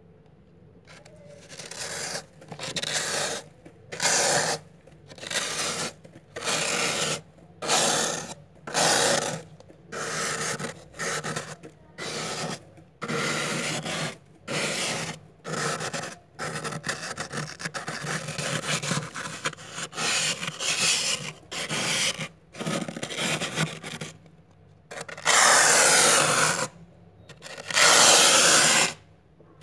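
A plastic card scraping thick, soft frost off a freezer wall in short, rasping strokes, about one a second. Near the end come two longer, louder strokes.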